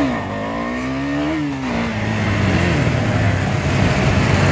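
KTM Duke motorcycle's single-cylinder engine accelerating as the bike pulls away: its pitch climbs for about a second, drops back, then the engine runs on steadily.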